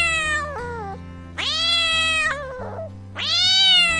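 House cat meowing, three long drawn-out meows one after another, each rising and then falling in pitch, over light background music.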